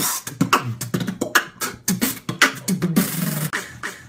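Beatboxed intro jingle: a quick run of vocal percussion strokes over low hums, with a longer hiss about three seconds in.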